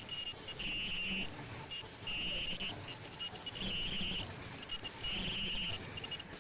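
Disposable flat-mask making machine with earloop welder running: a high-pitched squeal from its ultrasonic welding heads comes in four half-second pulses about a second and a half apart, one per welding cycle, over a light mechanical clatter.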